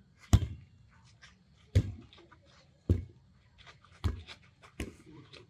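Five sharp knocks, roughly a second apart, with lighter clicks between them.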